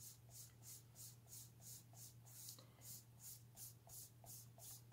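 Faint, brisk rubbing of a sponge-tipped PanPastel applicator scrubbed back and forth on scrap paper, about three soft scratchy strokes a second, wiping leftover pastel off the tool to clean it.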